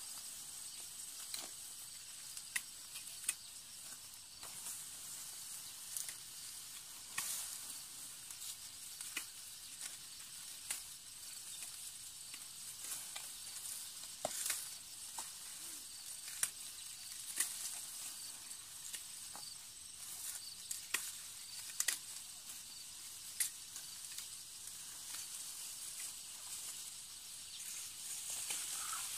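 Dry rice stalks rustling and snapping as ripe panicles are cut by hand, giving irregular sharp clicks every second or two over a steady high hiss.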